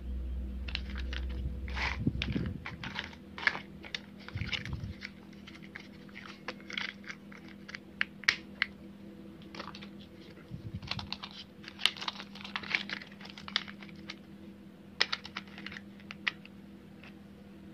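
Hard plastic toy vehicle parts clicking and clattering irregularly as they are handled and fitted together, over a faint steady hum.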